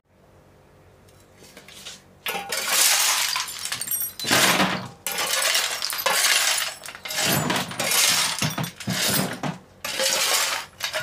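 Loose rusty scrap metal (bolts, nuts, washers and small parts) being shovelled off a tiled floor and tipped into a plastic bucket. It comes as repeated rounds of clattering and clinking, starting about two seconds in.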